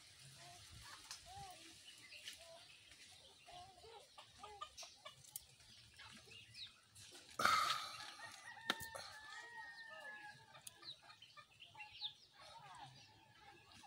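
Chickens clucking in short, scattered calls, with a rooster crowing once about seven seconds in, the loudest sound, held for about three seconds.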